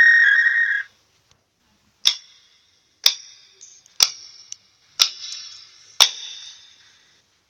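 A steady electronic tone cuts off just under a second in, then a clock-ticking sound effect plays from a phone app: five sharp ticks one second apart, each with a brief ringing tail.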